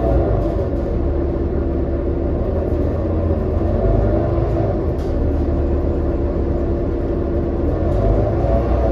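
2018 New Flyer XD40 diesel transit bus running, heard from inside the bus: a steady low rumble with a whining, layered drivetrain tone that shifts in pitch near the start and again near the end. It is the unusual running sound the uploader calls messed up.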